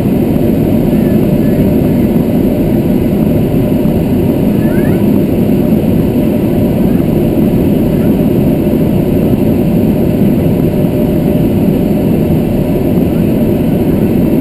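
Steady drone of a light aircraft's engine and propeller, mixed with rushing air, heard inside the cockpit in flight.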